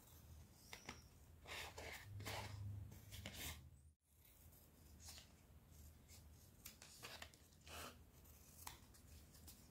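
Scissors cutting a sheet of EVA foam: faint snips, several in quick succession in the first few seconds, then single snips spaced out.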